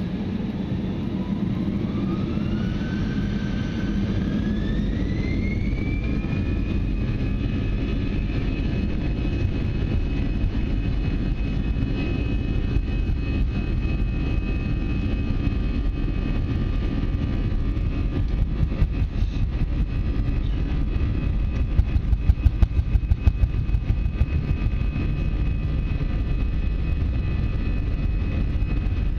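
Airbus A320 jet engines spooling up to takeoff thrust: a whine climbs in pitch over about six seconds and then holds steady over a heavy low roar, as on the takeoff roll. A few louder bumps come about three-quarters of the way through.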